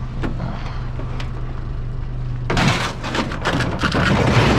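Steady low hum of an idling vehicle. About two and a half seconds in, a loud rush of rustling noise with knocks begins, the kind a vehicle door makes as it is opened and someone climbs out.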